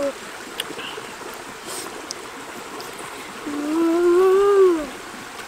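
Shallow rocky stream running steadily. About three and a half seconds in, a boy with his mouth full of egg hums one long 'mmm' of relish that rises a little and then falls away.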